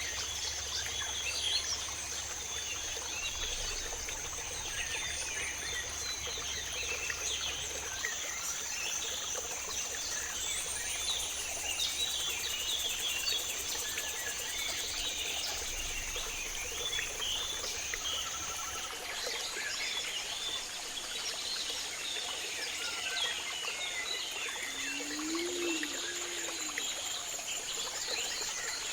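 Borneo rainforest chorus: a steady high-pitched insect drone with many bird chirps and calls scattered throughout, and one lower call about twenty-five seconds in.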